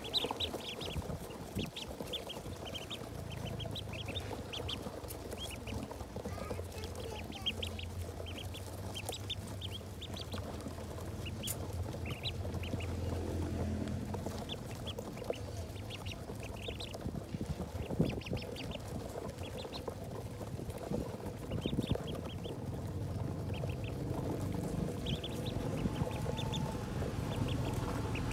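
A crowd of domestic ducklings peeping, many short high calls overlapping in quick runs. A low steady hum sits underneath for the first half.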